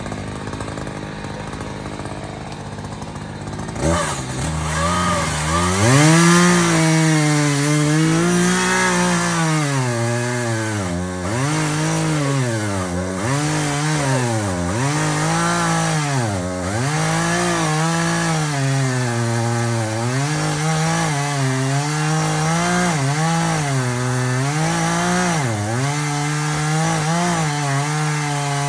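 Two-stroke chainsaw opening up to full throttle about four seconds in and cutting wood. Its pitch dips and recovers again and again as the chain loads up in the cut.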